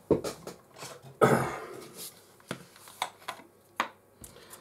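Small clicks and knocks of bottles and caps being handled on a workbench while isopropyl alcohol is being refilled into a small bottle, with one longer, louder scraping burst about a second in.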